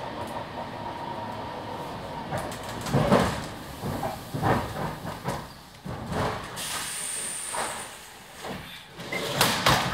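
Suburban electric train slowing to a stop at a platform. Steady wheel noise gives way to uneven knocks and clunks, then a short hiss of air about seven seconds in, and a louder clatter near the end.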